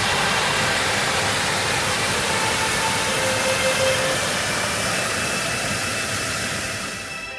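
Waterfall: the steady rushing of falling water, fading down over the last second or so.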